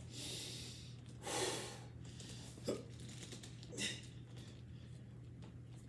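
A man's hard, effortful breaths as he strains through heavy curls: four noisy breaths in the first four seconds, the later two short and sharp, then quieter.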